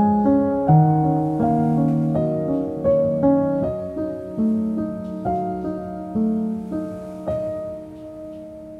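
Background piano music: a slow, gentle melody of single notes and chords, each struck note ringing and fading.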